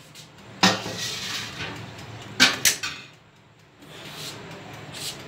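Kitchenware being handled: a sharp clatter about a second in, then two quick knocks close together near the middle.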